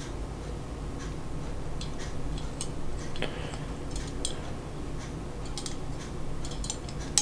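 Small model-kit parts being handled and fitted together by hand: scattered light clicks and taps at irregular times, over a steady low background hum.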